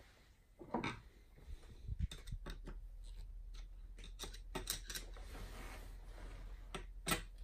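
Metal clicks and knocks from a CKF milling attachment on a Schaublin 70 lathe as its handles and clamps are worked by hand: about a dozen sharp taps and clacks spread unevenly, the loudest near the end.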